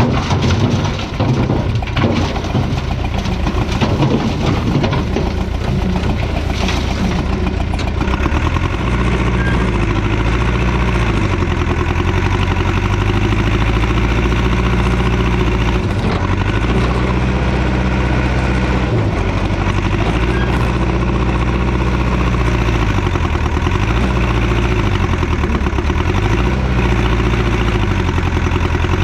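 Allis-Chalmers 655 track loader's engine running while working demolition debris, with clattering knocks over the first several seconds. After that it runs steadily, its engine speed dipping and coming back up several times.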